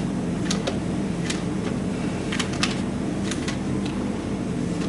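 Light, sharp clicks at uneven intervals, sometimes two close together, from hands handling things at a music stand, over a steady low hum of room noise.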